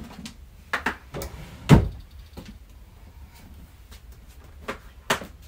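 A handful of short knocks and thumps as objects are picked up and set down, with one heavier low thump about two seconds in and a sharp knock near the end.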